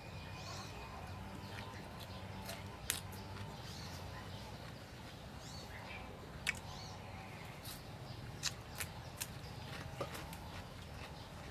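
Eating sounds: a handful of sharp clicks and crackles from boiled shrimp being peeled and chewed with fresh lettuce, most of them in the second half, over a low steady background hum.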